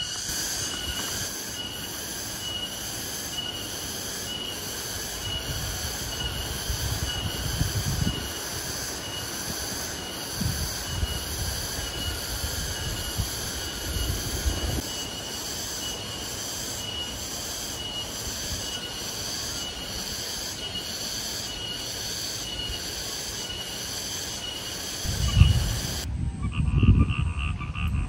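A chorus of tropical insects buzzing in a steady, high-pitched pulsing rhythm, about one and a half pulses a second, with dull low rumbles now and then. Near the end it gives way to frogs croaking in a rapid, even rhythm.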